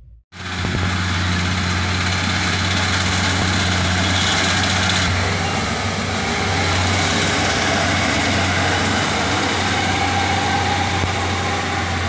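Kubota combine harvester's diesel engine running steadily under load as the machine cuts and threshes rice, a constant low engine hum with dense mechanical noise over it. It starts suddenly just after the beginning.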